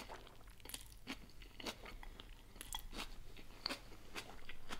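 A person chewing a mouthful of cold noodle salad with vegetables close to the microphone: quiet, irregular wet clicks and soft crunches.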